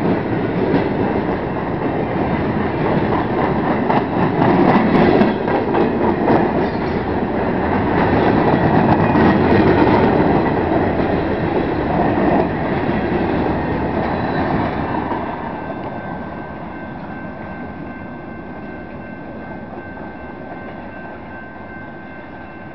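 Freight train cars rolling past at close range, steel wheels clacking on the rails. The noise falls away from about fifteen seconds in as the train recedes.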